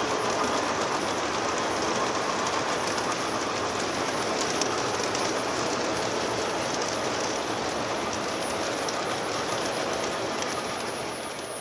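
O scale model freight trains running on several tracks at once: a steady rattle and rumble of metal wheels and cars on the rails, fading near the end.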